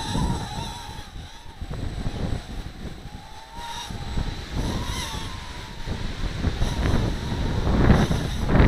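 Micro quadcopter's motors and propellers whining, the pitch wavering up and down as it flies. Wind buffets the microphone, rumbling louder near the end.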